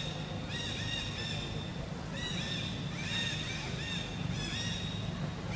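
High-pitched animal calls: short rising-and-falling chirps repeated in quick groups, a few per second, with some longer held notes, over a steady low hum.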